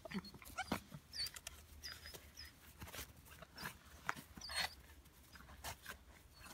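Belgian Malinois puppy tugging at a rope toy on grass: faint scuffling, rustling and short clicks of play, with a few brief high chirps.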